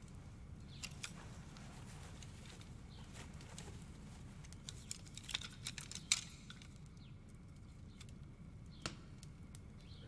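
Faint scattered light clicks and taps from a letter being handled as it is read, over a low steady hum; the sharpest click comes about six seconds in.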